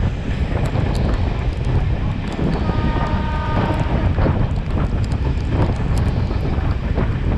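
Sri Lanka Railways Class S11 diesel multiple unit running at speed, heard from an open coach window: heavy wind buffeting over the rumble of the wheels on the track, with scattered sharp clicks. A brief faint high tone comes about three seconds in.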